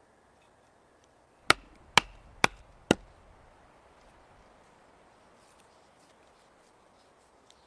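Wood being chopped with an axe: four sharp strikes about half a second apart, each with a short ring.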